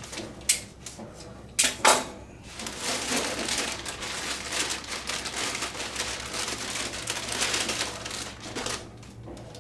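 Packaging being handled while a part is unpacked: a few sharp knocks in the first two seconds, then several seconds of crinkling and rustling that fades out near the end.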